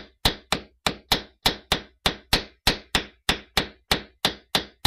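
A small hammer tapping the top of a short PVC pipe in an even series of sharp, ringing strikes, about three a second, driving the pipe down into sand.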